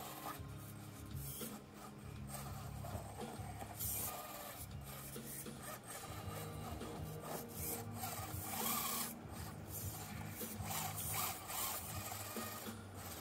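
Axial SCX24 micro rock crawler's small electric motor and gears whirring in stop-start bursts as its tyres scrabble and rub over stone, with background music playing throughout.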